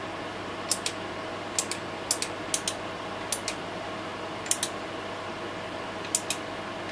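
Front-panel pushbuttons of an HP 8672A signal generator clicking as they are pressed, in quick double clicks about seven times, over the steady hum of the running instrument's cooling fan.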